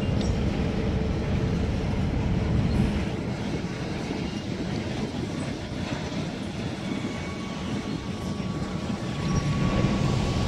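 Coal hopper cars rolling past at slow speed: a steady low rumble of wheels on rail. A faint thin wheel squeal rises in the last few seconds.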